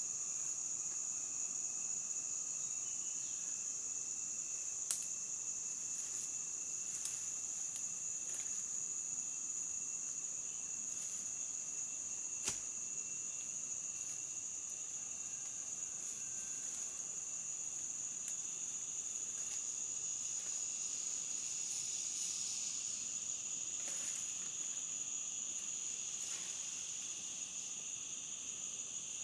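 Steady, high-pitched chorus of crickets or similar insects, unbroken throughout. A handful of sharp clicks or snaps punctuate it.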